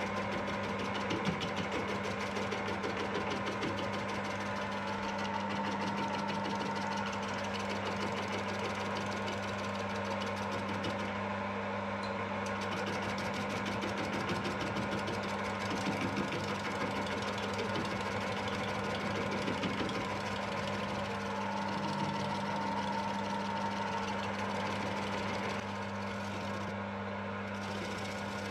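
Metal lathe running with a steady motor hum.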